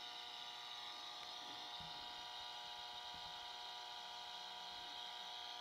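Greenwave broadband EMI meter's speaker giving out a steady hum of many layered tones. It is the audible sign of high-frequency noise, 'dirty electricity', on the mains line, which the plugged-in PS Audio Noise Harvester is doing nothing to reduce.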